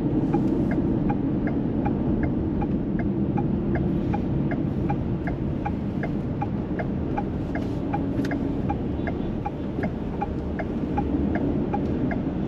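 A car's turn-signal indicator ticking steadily, about two to three ticks a second, over the steady low hum of the engine and tyres inside the cabin.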